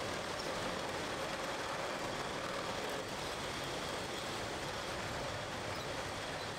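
Steady mechanical noise of a running beer bottling line, conveyors and drives in operation, with a faint held tone over the noise. The level steps down slightly about three seconds in.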